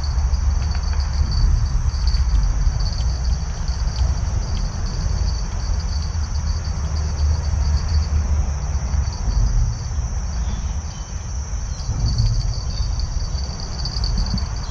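Steady high insect chirping, a pulsing cricket-like trill, over a continuous low rumble that is the loudest sound throughout.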